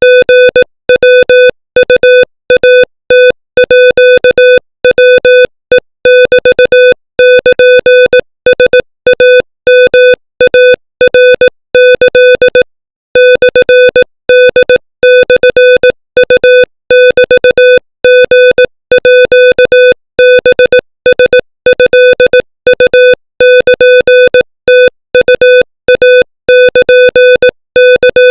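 Morse code sent at 25 words per minute as a keyed electronic beep: a single mid-pitched, slightly buzzy tone switched on and off in rapid short and long elements, with short gaps between letters and a longer pause a little before the middle. It is a practice transmission spelling out Thai text.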